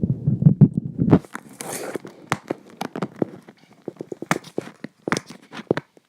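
Handling noise: low rumbling on the microphone for about a second, then a run of sharp clicks and crinkling as packaging and accessories are unpacked.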